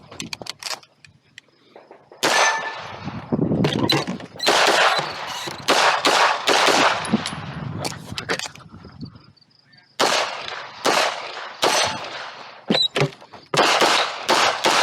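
Handgun shots fired in quick strings during a timed competition stage. The shots start about two seconds in and come several a second, each with a ringing tail. There is a break of about two seconds past the middle, then another fast string.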